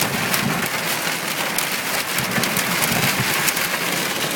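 Heavy rain pelting a car's roof and windows, heard from inside the car: a dense, steady patter with many sharp individual drop hits.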